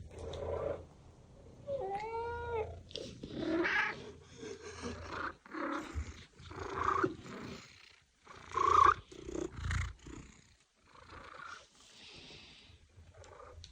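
Domestic cat meowing over and over in about a dozen short calls, one a clear rising-and-falling meow about two seconds in, with a low purr under it at times.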